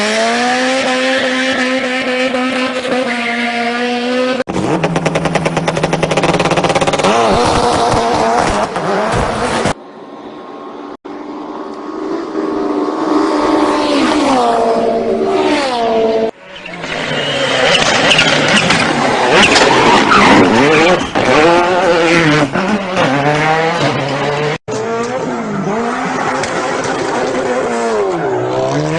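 Pet animals making long, wavering, pitched cries that slide up and down in pitch, in a series of short clips that cut off abruptly several times.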